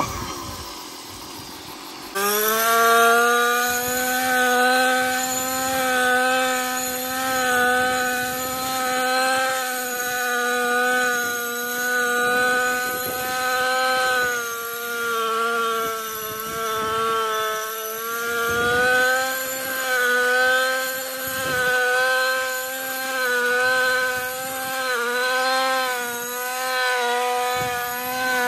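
Husqvarna 128R brushcutter's small two-stroke engine running steadily, starting about two seconds in. Its loudness swells and fades every two seconds or so, with slight dips in pitch, as it cuts through the growth.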